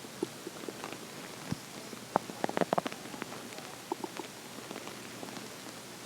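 Human stomach growling from hunger: a quick run of gurgling pops about two seconds in, then a few more, with small scattered gurgles around them.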